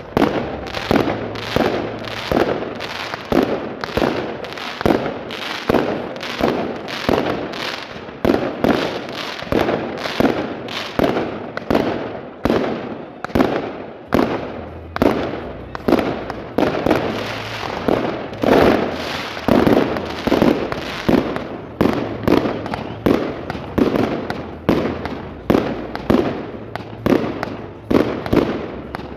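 Fireworks salute going off: a steady run of sharp bangs, about two a second, each with a short fading tail.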